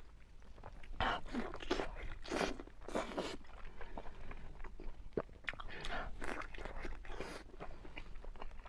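Close-miked biting and chewing of a braised pork intestine bundle (猪捆肠). A few bites in the first seconds are followed by steady chewing with many short clicks and smacks.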